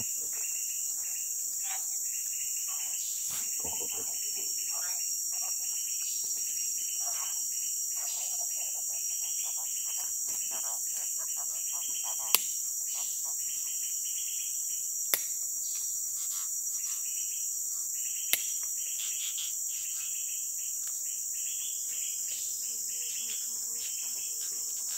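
Steady, high-pitched drone of a tropical forest insect chorus, with scattered short rustling and handling noises. Three sharp clicks come about three seconds apart, around the middle.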